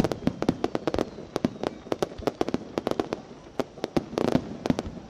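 Fireworks bursting in quick, uneven succession, a sharp bang every fraction of a second, with a brief denser crackling cluster near the end.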